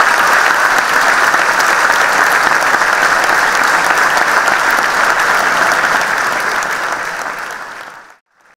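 Large theatre audience applauding steadily, a dense patter of many hands clapping; it fades away about eight seconds in.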